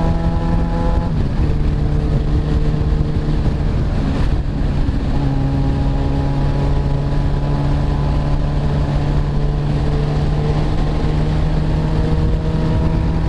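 Motorcycle engine running under way with wind noise. Its note steps down about a second in and changes again around four to five seconds in, like gear changes.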